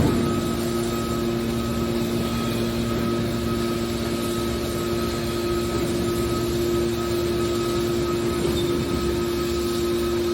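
Industrial machinery running with a steady hum made of two low tones over a constant noise, and one sharp knock right at the start.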